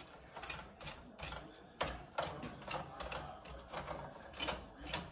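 A knife cutting and scraping through roast pork shoulder on a wire rack: a string of short, irregular clicks and scrapes, about two a second.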